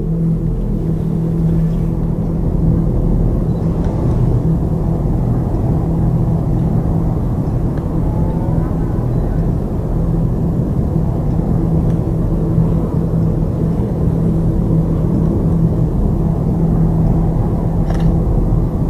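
Steady low rumble of a moving vehicle, engine hum and road noise, continuing without a break.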